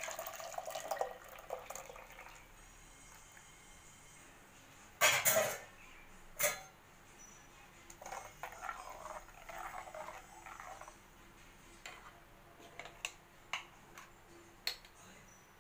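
Buttermilk poured from a steel vessel into a clay pot of ground coconut paste, then a metal spoon stirring the mixture, scraping and clinking against the clay pot. A sharp knock about five seconds in, and a second one about a second later, are the loudest sounds.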